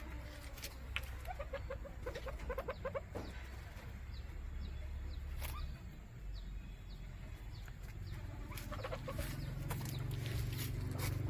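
A bird calling in quick series of short, repeated notes in the first few seconds and again near the end, over a steady low hum.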